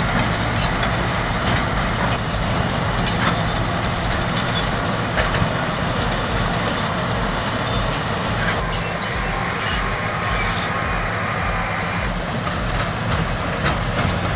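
Heavy diesel engines of a Komatsu bulldozer and a Cat D8R running steadily under hard load in a head-to-head contest, with scattered metallic clanks and knocks over the rumble.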